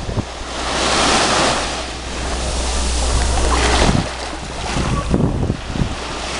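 Small surf breaking and washing up a sandy beach, the rush swelling and easing a few times, with wind buffeting the microphone as a steady low rumble.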